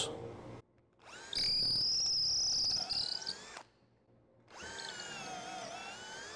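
Cordless drill boring pocket holes into a clamped wooden board with a stepped pocket-hole bit, in two runs: a louder run of about two seconds, then a quieter second run. Each run is a steady motor whine, and the pitch dips a little near the end of the second run as the bit takes load.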